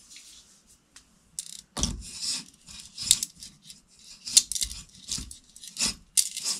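Light bulb being screwed into a porcelain lamp-holder socket: a series of grating scrapes as its base turns in the socket threads, starting a little over a second in and coming about every half second.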